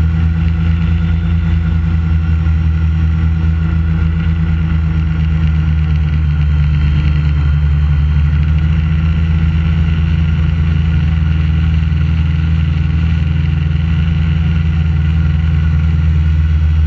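Steady, loud hum of an AeroQuad quadrotor's motors and propellers, heard up close through the camera mounted on the craft. The pitch shifts slightly and the sound grows a little louder about halfway through.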